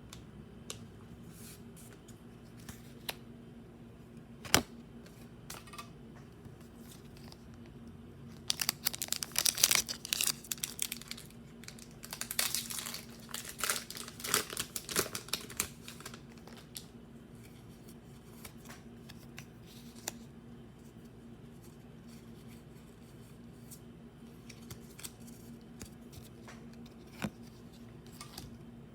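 A foil Pokémon booster pack wrapper being torn open and crinkled, in two spells of crackling near the middle, with scattered light taps and clicks from handling the pack and cards around them.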